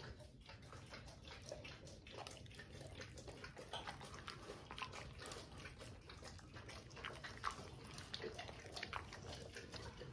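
A dog licking a plate clean: faint, irregular wet tongue smacks and small clicks against the plate.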